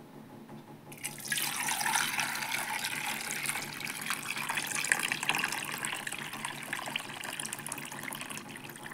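Water poured from a plastic jug into a steel pot full of raw eggs, splashing over the shells and filling the pot. The pour starts about a second in and runs steadily after that.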